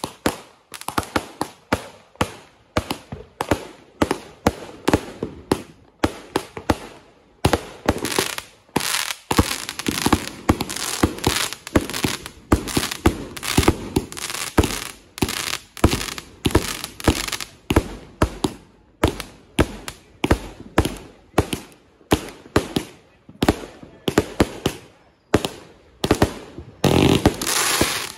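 Aerial fireworks going off in quick succession: sharp bangs and booming bursts, several a second, with hardly a pause. A denser crackling burst comes near the end.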